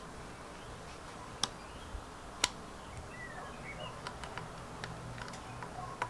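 Scattered small metallic clicks and taps from a motorcycle clutch cable being fitted into the handlebar clutch lever, with two sharper clicks about a second apart.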